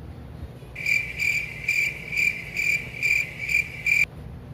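Cricket chirping, about two to three chirps a second. It starts abruptly about a second in and cuts off suddenly near the end, in the manner of an edited-in sound effect.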